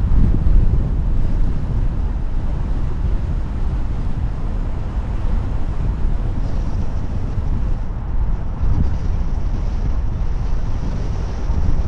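Car driving along a road: steady road and wind noise, heaviest in the low end, with wind buffeting the microphone. A faint high thin whine joins in about halfway through.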